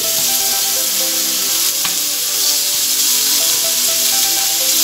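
Steady sizzling of food frying in hot olive oil: mushrooms, broccoli and zucchini sautéing in a frying pan while lamb chops are laid into a second pan.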